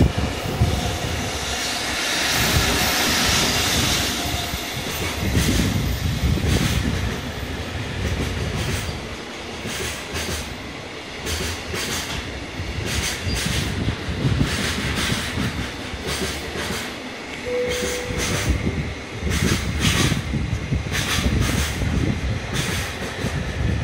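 Container freight train wagons rolling past at speed, a continuous rumble of steel wheels on rail with repeated clacking as the wheels cross the rail joints.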